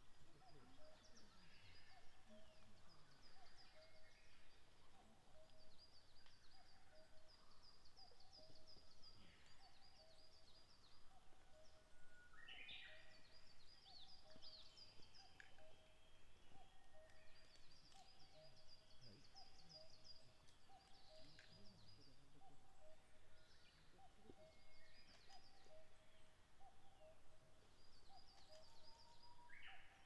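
Faint woodland birdsong: a distant bird repeats a low two-note call, the second note lower, over and over, while other birds sing bouts of rapid high trills.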